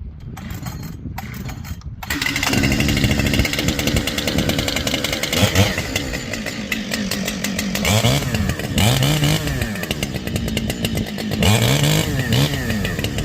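Husqvarna 592 two-stroke chainsaw catching about two seconds in, then running while it warms up, revved up and down several times.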